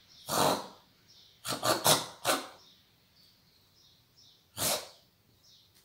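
A person imitating an animal with short breathy blasts of air: one, then four in quick succession, then one more; the guesser takes it for a bull.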